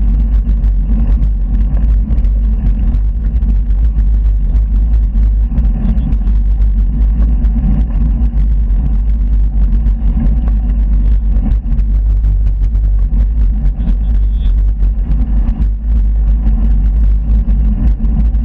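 Steady low rumble of wind buffeting the microphone of a handlebar-mounted camera on a moving bicycle.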